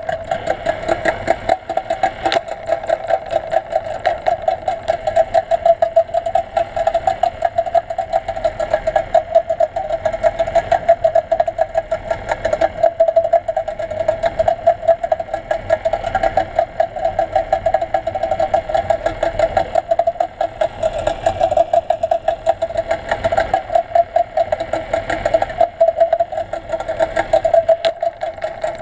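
A motor's steady, rapidly pulsing drone, heard underwater.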